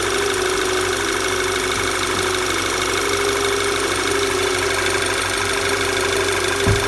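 Volkswagen Tiguan engine idling steadily, with the knocking noise that is the fault under investigation. A single low thump near the end.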